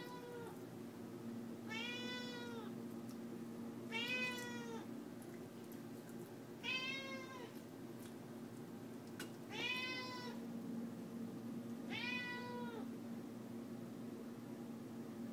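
A domestic cat meowing over and over: about six drawn-out meows, two to three seconds apart, each rising then falling in pitch. The cat is begging for the raw chicken being cut up. A low steady hum runs underneath.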